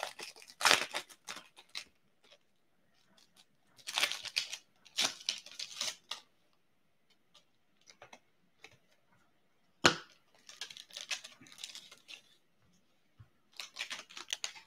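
Foil trading-card pack being torn open and its wrapper crinkled, in several separate bursts of tearing and rustling, with a single sharp knock about ten seconds in.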